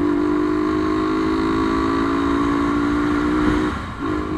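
Motorcycle engine running at a steady speed, a constant drone, with wind noise underneath; the drone drops off briefly near the end, then picks up again.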